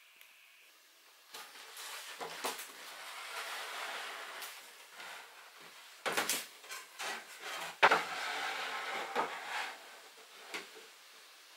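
Wooden boards being handled and fitted into a wooden kitchen unit: a run of rubbing and scraping of wood on wood, broken by several sharp knocks, the loudest about six and eight seconds in.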